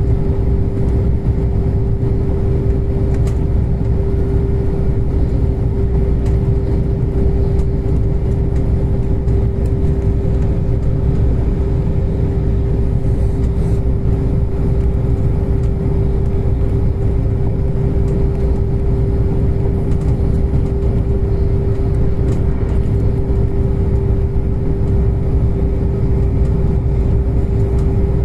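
Passenger train running at a steady speed, heard from on board: a constant low rumble of the running gear with a steady hum held at one pitch.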